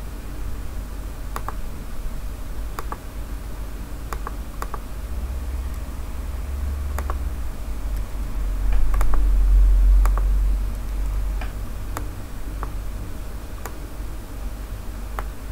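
Computer mouse and keyboard clicks, single sharp clicks about once a second with a few in quick pairs, as a number is entered into a text box. Under them runs a low rumble that swells for a couple of seconds in the middle.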